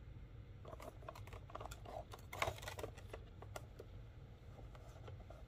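Cardboard box of a die-cast model airliner handled and turned in the hands: a faint run of light clicks, taps and scrapes of fingers on cardboard, busiest about two and a half seconds in.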